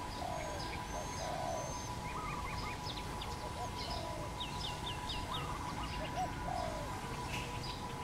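Spotted dove cooing in short repeated phrases. Other small birds chirp quick high note series in the background over a steady thin tone.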